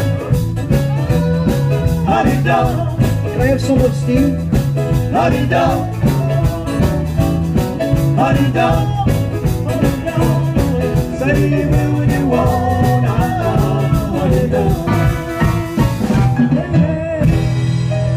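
Live band playing rock and roll with a drum kit and a steady beat.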